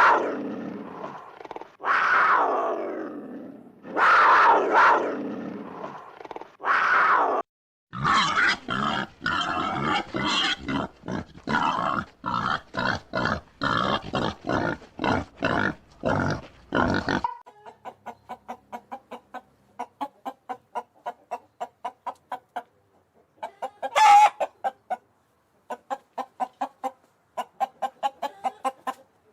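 Animal calls in a changing sequence. First come about four falling calls, then a fast, dense run of clucking-like pulses, then a quieter, even train of rapid pulses with one loud short call about two thirds of the way through.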